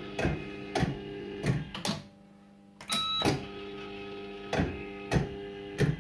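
Firecracker fruit machine playing: its reels clunk to a stop one after another, in a few quick clusters of clicks, while the machine's steady electronic tones sound between the stops.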